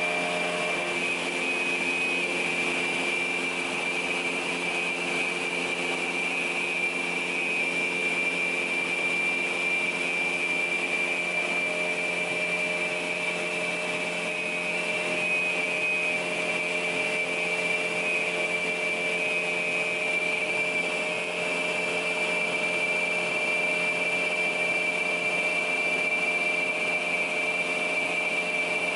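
PAUL K3U800 shaft multi-rip saw running steadily, its gang of blades and feed rollers spinning: a constant high whine over a lower mechanical hum.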